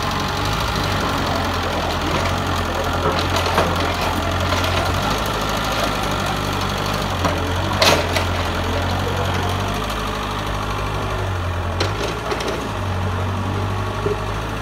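Mitsubishi excavator's diesel engine running steadily at work, its low hum swelling and easing every few seconds. A few sharp knocks sound over it, the loudest about eight seconds in.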